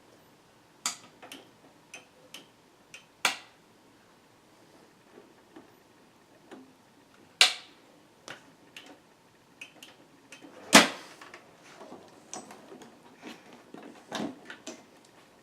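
Irregular clicks and knocks of computer hardware being handled and connected, with a louder knock about three seconds in, another past the middle, and the loudest about two-thirds through.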